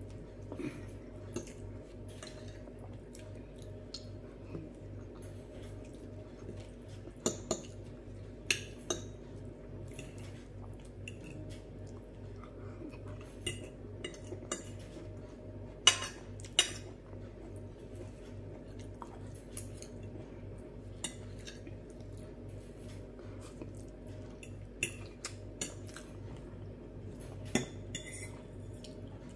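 Metal knife and fork clinking and scraping against glass plates in scattered sharp clicks, the loudest two about half a second apart a little past halfway. A steady low hum runs underneath.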